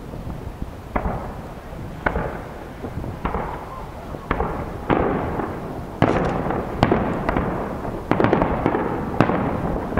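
Fireworks display: aerial shells bursting with sharp bangs about once a second, each trailing off in a rumble and crackle, coming thicker and louder in the second half.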